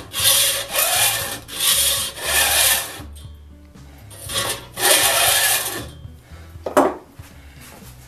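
Flat file drawn lengthwise along the tooth tips of a buck saw blade in a jointing fixture, in a series of scraping strokes. The strokes level the teeth to the same length. About four strokes come in quick succession, then two more about four to five seconds in, then a single sharp knock near seven seconds.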